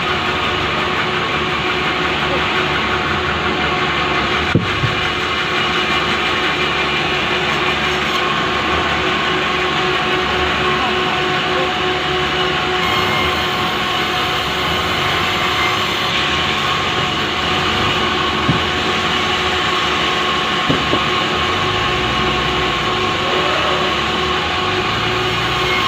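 Power saw running steadily while ripping a large Pulai log lengthwise, with a few brief knocks.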